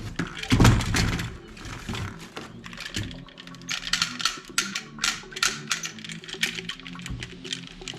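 A heavy thump just under a second in, then a fast run of sharp plastic clicks and clatters from about the middle on, like toy guns being handled and worked, over background music.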